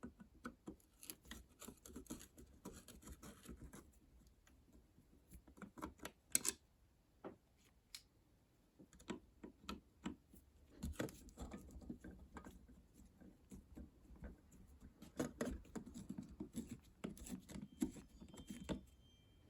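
Screwdriver turning out the screws of a wall switch cover plate: a run of small, irregular clicks and scrapes.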